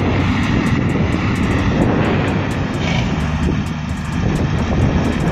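Diesel engine of a tractor-trailer dump truck running with a steady low drone.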